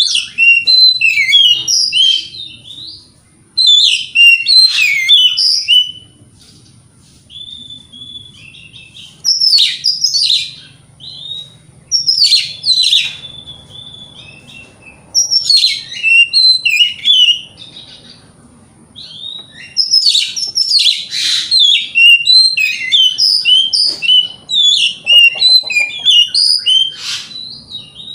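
Oriental magpie-robin (kacer) in vigorous song: loud phrases of rapid, varied whistles and chirps lasting a second or three, broken by short pauses, with a long unbroken run near the end.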